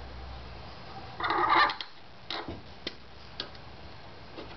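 Small metal clicks and taps from a screw and Allen key being fitted at the corner of a 3D-printer bed plate: a quick rattling cluster of clicks about a second in, then a few single sharp ticks.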